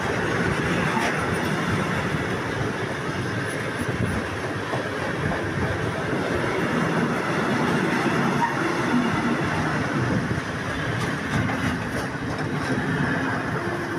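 Freight train of covered hopper wagons passing close by: a steady rumble and clatter of wagon wheels on the rails.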